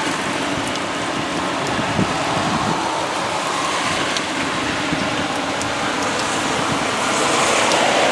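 Heavy rain pouring down, a steady hiss with faint scattered drop ticks, growing a little louder near the end.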